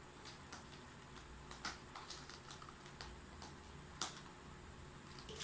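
Faint, irregular light clicks and taps from cats at play, with one sharper click about four seconds in.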